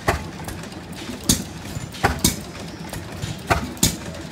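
Antique hit-and-miss stationary gas engines running, each firing stroke a sharp exhaust pop. Six pops come at uneven intervals, some close together in pairs, over a steady low running sound.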